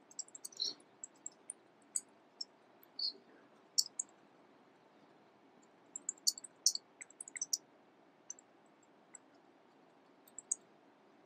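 Faint, scattered small clicks, bunched about halfway through, from a computer mouse and laptop keys being worked at the lectern to start a video, over a faint steady room hum.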